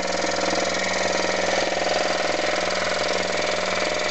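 Scroll saw running at about three-quarter speed, its reciprocating blade cutting steadily through wood as the piece is steered along a curve: a steady motor hum under a fast, even rasp of blade strokes.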